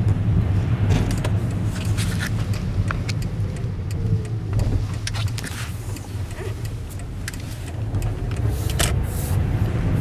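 Car heard from inside the cabin while driving on snow-covered streets: a steady low engine and road rumble, with scattered light clicks and ticks. The rumble eases slightly about two-thirds of the way through, then picks up again.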